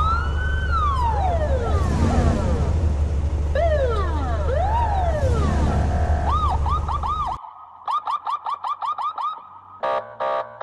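Multi-tone electronic car alarm cycling through its patterns: slow rising and falling wails, then quick repeated whoops about five a second, then short rapid chirps near the end. A steady deep drone runs beneath it and cuts off at about seven and a half seconds.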